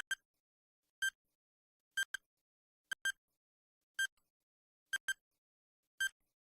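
Countdown clock-tick sound effect: short, sharp pitched ticks about once a second, some single and some as quick double ticks, with silence between.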